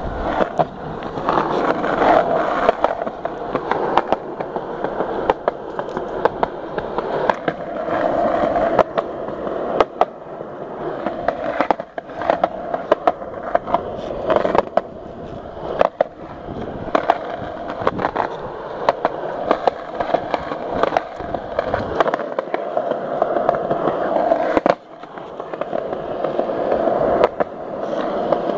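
Skateboard wheels rolling on a concrete sidewalk: a steady rumble with frequent sharp clacks. It eases off a little over twenty seconds in, then picks up again.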